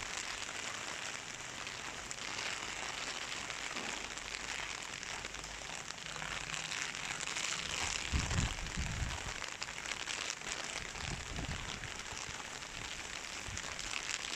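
Heavy rain falling steadily, a dense even patter, with low rumbles of wind gusting on the microphone now and then, strongest about eight seconds in.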